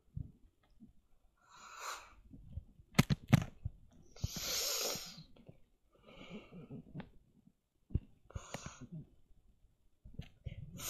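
About four breathy puffs of air from a person's mouth close to the microphone, the longest and loudest a little after four seconds in, with two sharp handling clicks just before it.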